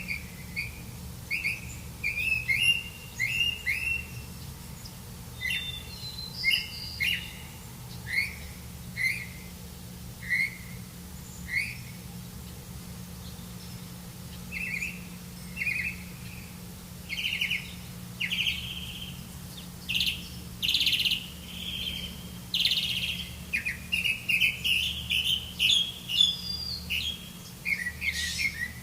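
Small birds chirping in short, repeated notes, with a lull about halfway and busier chirping toward the end, over a steady low hum.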